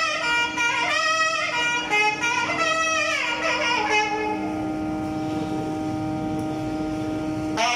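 Clarinets and a trumpet of a festival band playing a film-song melody together, moving note to note, then holding one long note from about four seconds in until the tune moves on again just before the end. A steady low drone sounds underneath.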